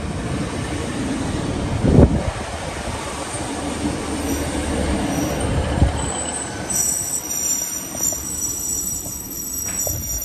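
Class 156 Sprinter diesel multiple unit passing close by, its underfloor diesel engines and wheels rumbling, with a loud knock about two seconds in. From about seven seconds a high-pitched wheel and brake squeal sets in as it slows for the station stop.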